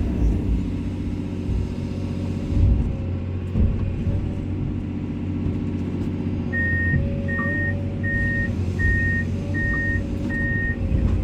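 Komatsu excavator's diesel engine running steadily under work, with a couple of knocks a few seconds in. About two-thirds of the way through, the machine's warning alarm starts beeping evenly, six beeps, as it moves.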